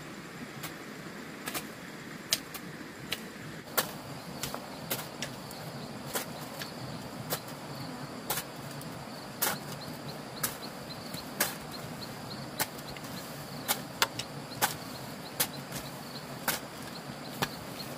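Sharp, irregular clicks or knocks, roughly one a second, over a steady background hiss.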